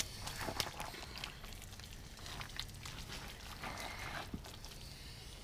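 Seasoning shaken from a round shaker onto a raw prime rib roast: a faint patter of granules with soft ticks as the shaker is worked, and a hand rubbing over the meat.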